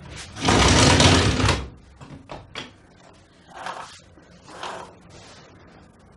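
A window sliding shut with a loud scrape lasting about a second, a couple of clicks, then two swishes of curtains being drawn along their rail.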